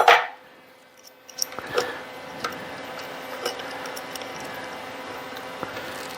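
Hand tools and small metal parts clinking as an old drill press is taken apart: one sharp metal clink at the start, then scattered light clicks and ticks over a steady hum.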